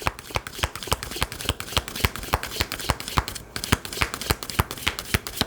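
A deck of fortune-telling cards being shuffled by hand: a rapid, irregular run of sharp card snaps and taps.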